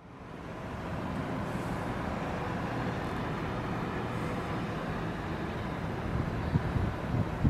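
City traffic noise, a steady low rumble that fades in over the first second, with a couple of low thumps near the end.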